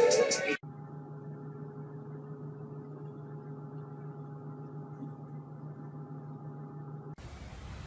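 Rap music breaks off about half a second in. It is followed by a steady low hum made of a few constant tones, which cuts off shortly before the end.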